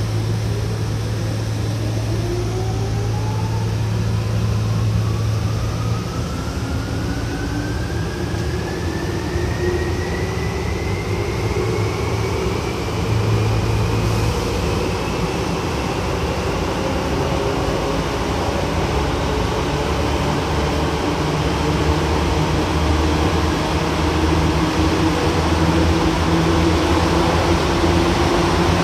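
Tokyu 8500 series electric train's Hitachi traction motors whining from inside the car as the train accelerates. The whine climbs smoothly in pitch for about eighteen seconds and then levels off, over the steady rumble of the running train. A low hum in the first few seconds stops about six seconds in.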